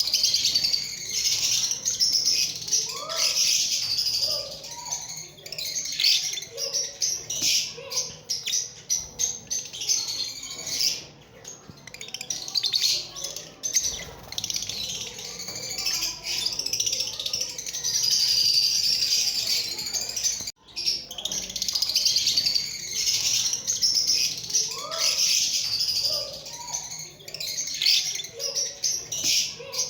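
Lovebirds chirping nonstop in a dense, high-pitched chatter of quick calls. The chatter dips briefly about eleven seconds in and cuts out for an instant around twenty seconds.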